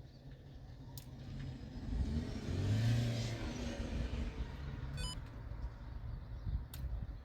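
A vehicle passing by: engine and tyre noise swell to a peak about three seconds in, then slowly fade.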